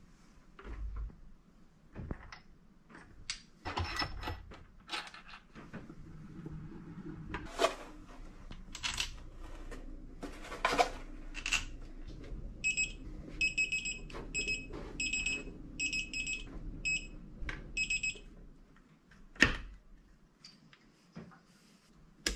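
Scattered knocks and clicks of metal engine parts being handled as motorcycle crankcase halves are fitted together. In the middle a pitched electronic beep repeats about twice a second for several seconds.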